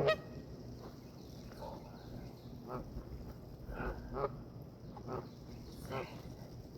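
Short, strained vocal grunts, roughly one a second, from a man doing sit-ups, each pushed out with the effort of a sit-up.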